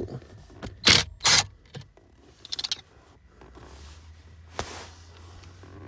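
Cordless drill backing out screws from a car's blower motor housing, with two short scrapes about a second in, a brief rattle of small parts, and a low steady hum in the second half.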